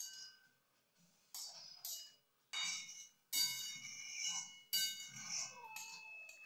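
Metal spatula stirring curry in an aluminium wok, knocking and scraping against the pan about seven times, each knock ringing briefly.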